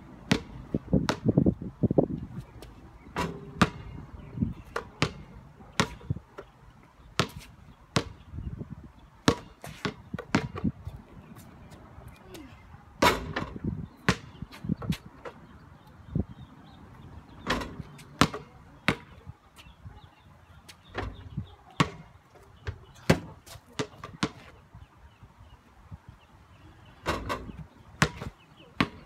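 A basketball being dribbled on a paved driveway: sharp bounces at an uneven pace, about one or two a second, some louder than others.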